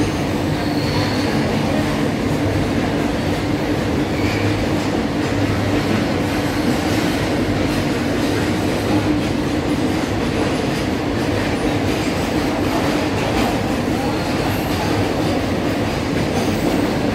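Covered boxcar wagons of a freight train running through at speed: a steady rumble and clatter of steel wheels on the rails.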